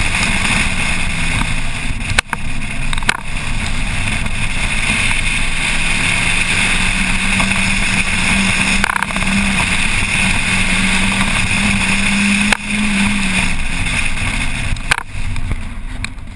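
Car engine running hard under load, together with road and wind noise, at a steady loud level. It is broken by several brief sharp drops in loudness: a couple in the first few seconds, one in the middle, and two near the end, after which it settles lower as the car slows.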